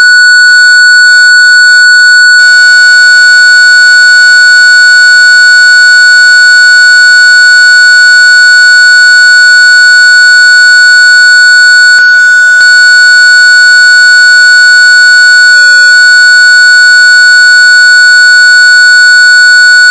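A loud, continuous electronic beep held at one steady high pitch, with two brief glitches in the second half.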